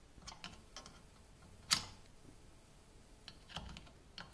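Faint scattered clicks and ticks, one sharper click a little under two seconds in, from a small two-stroke engine and its cam-operated air-gun trigger being handled while the flywheel is turned over by hand.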